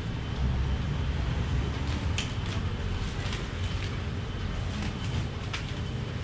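Steady low background rumble with scattered light clicks from knives cutting fruit, a few close together about two seconds in and another near the end.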